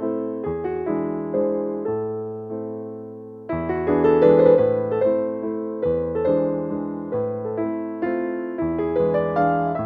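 Background music: a solo piano melody with chords, notes struck and fading away. The playing eases off about three seconds in and starts again louder.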